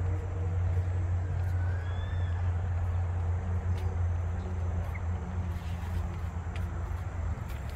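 Steady low rumble of distant city traffic, with a faint rising chirp about two seconds in.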